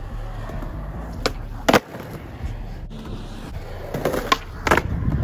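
Skateboard wheels rolling over concrete with a steady rumble. Sharp clacks from the board come about one and a half seconds in, and several more come near the end.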